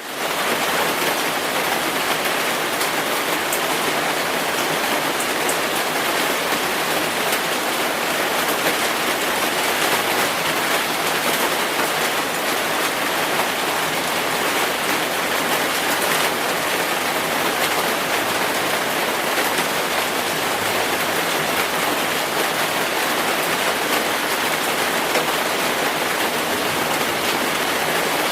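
Hard rain falling steadily: an even hiss that never lets up, with faint scattered drop ticks.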